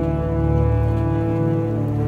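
Background music of sustained, held chords that shift about a second and a half in.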